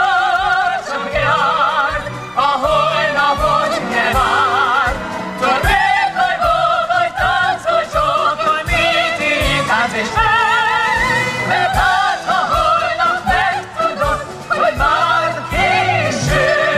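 Operetta singers, women's and men's voices with wide vibrato, singing a lively ensemble number together with a full symphony orchestra that keeps a steady beat.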